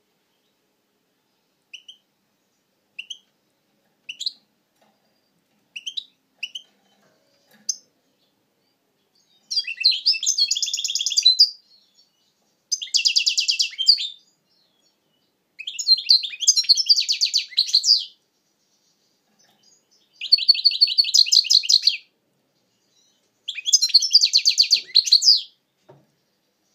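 European goldfinch calling and singing: about six short single chirps spaced a second or so apart, then five rapid trilled song phrases of about two seconds each, separated by short pauses.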